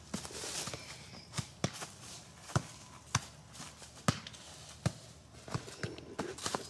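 Soccer ball being kicked and juggled: a string of sharp, irregularly spaced thuds, roughly one a second, with footsteps shuffling in dry leaf litter.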